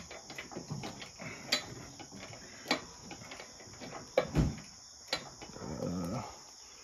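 Steady high insect trill in the background, with a few sharp clicks scattered through it and a low thump about four seconds in.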